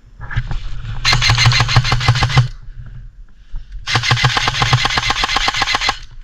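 Airsoft electric gun firing two full-auto bursts of about two seconds each: a rapid, even stream of shot cracks over the whir of the gearbox motor.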